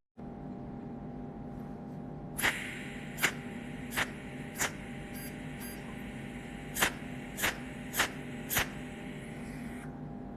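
Welding machine running with a steady electrical hum, while eight sharp clicks sound, roughly in pairs, from a couple of seconds in until near the end.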